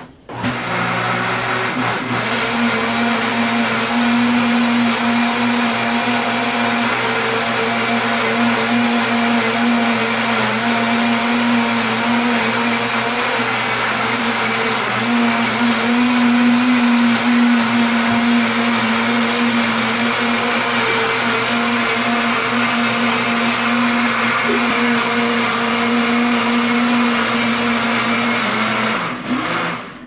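Electric countertop blender running steadily at one speed with a steady hum, blending used cooking oil and dissolved caustic soda into a creamy soap batter; it is switched off near the end.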